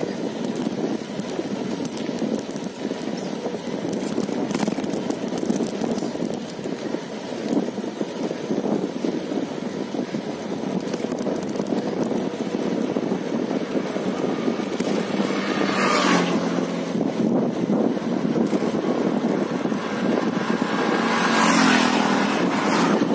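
Steady wind rush over the microphone of a moving rider. A motor vehicle passes about two-thirds of the way through, and an auto-rickshaw's engine goes by near the end.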